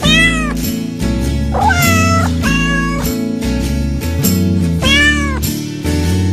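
Several cat meows, rising and falling in pitch, one near the start, a longer run in the middle and another near the end, over steady instrumental background music with a repeating bass line.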